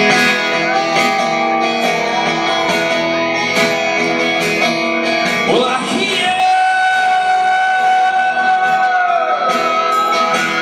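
Live rock band music: singing over guitars, with long held notes.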